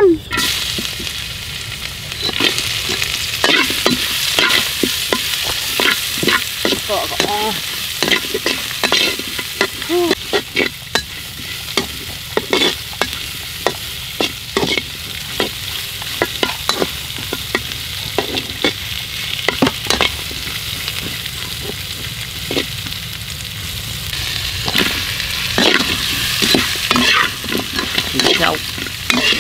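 Chopped aromatics sizzling in hot oil in a wok, with a metal spoon clicking and scraping against the pan at irregular intervals as it stirs. The sizzle grows louder for a few seconds near the end.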